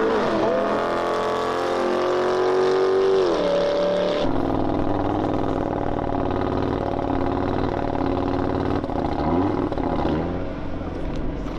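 Car engine revving hard, its pitch swinging up and down. About four seconds in it changes abruptly to a duller, steadier engine sound.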